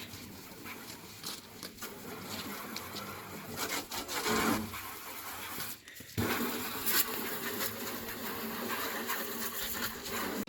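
Produce bins being washed out: a steady scrubbing, rubbing noise with scattered knocks and clicks, broken off briefly just before six seconds in.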